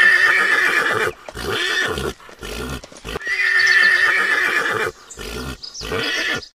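Horse whinnying twice: a long, quavering neigh that ends about a second in, and another about three seconds in, with shorter horse sounds between and after.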